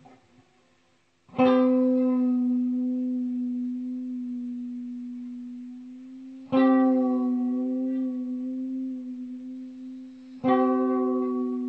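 Electric guitar: a chord struck three times, about a second in, near the middle and near the end, each left to ring out and slowly fade.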